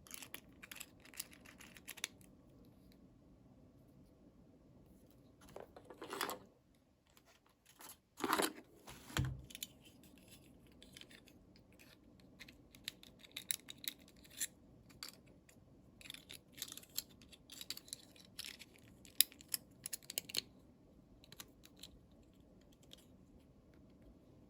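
Small plastic toy pieces and packaging being handled: scattered light clicks and taps, with a couple of louder rustling swishes and a soft thump about nine seconds in.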